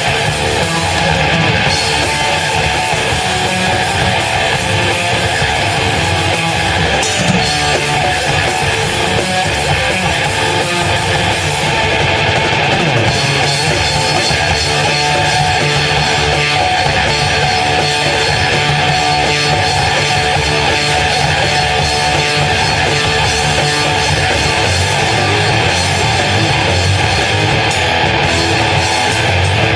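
A live band playing loud, guitar-led rock music without a break.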